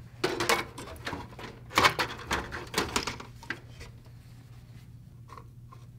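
Clicks, knocks and light clattering as a motherboard is set down into a metal PC case and handled, a busy run of taps over the first three seconds or so, then only a few faint ticks.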